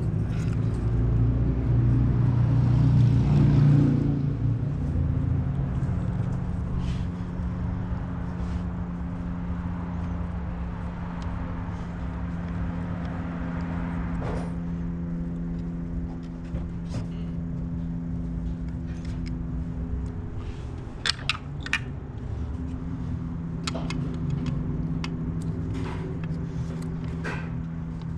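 A steady mechanical hum with an even buzz running under everything. It is louder for the first few seconds. A few sharp metallic clicks of hand tools come about 21 seconds in and again later.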